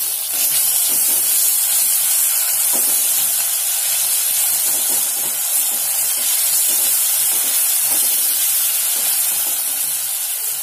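Onions, curry leaves and green chilli paste sizzling steadily in hot oil in an aluminium kadai, with a plastic spatula stirring and scraping through them.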